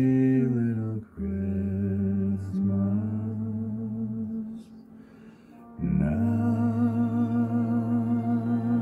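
A man humming long held notes, breaking off briefly about a second in and again near the middle; the last note wavers with a slight vibrato.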